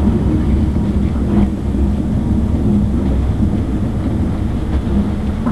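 Steady low rumble of running gear heard from inside a Class 458 'Juniper' electric multiple unit moving at low speed along a station platform, with a steady low hum under it.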